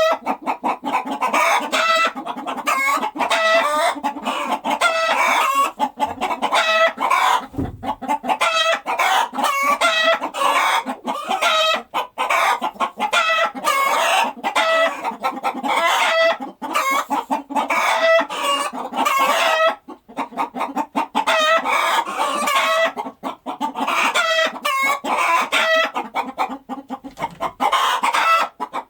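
Chickens clucking in a dense, unbroken stream of short overlapping calls.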